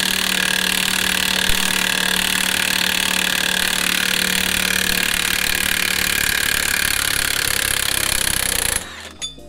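Cordless impact wrench hammering steadily as it drives the threaded rod of a bearing press tool, pushing the worn front wheel bearing out of the hub; it stops abruptly near the end.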